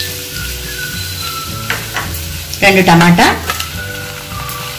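Chopped onions sizzling steadily in hot oil in a kadai.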